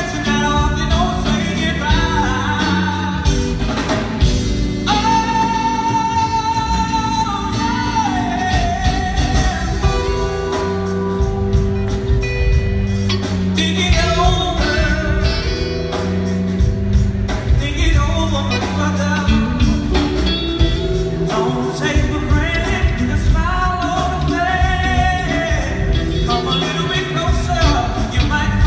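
Live band music: a man singing over keyboards and electric guitar with a steady beat.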